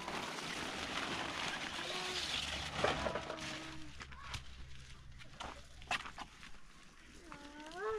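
Large plastic sheet rustling and crinkling for the first few seconds, then scattered knocks and footsteps. A few short animal calls come in, the last one rising in pitch near the end.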